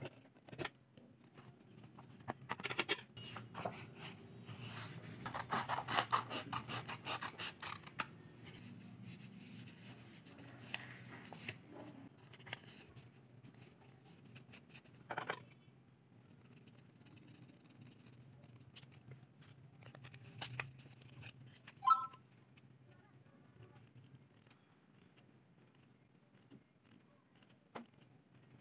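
Scissors cutting cardboard: a dense run of crisp snips and crunches for about the first ten seconds, then quieter rustling and occasional snips, with a short squeak past the middle.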